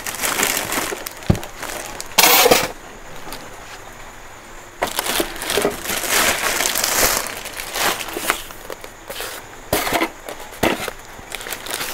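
Clear plastic bag crinkling and rustling in irregular bursts as it is pulled off a new sewing machine, with a few sharp knocks.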